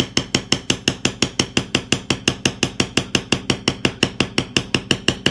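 Rapid, evenly paced mallet strikes on a metal leather-tooling stamp driven into leather, about six a second, each with a short metallic ring.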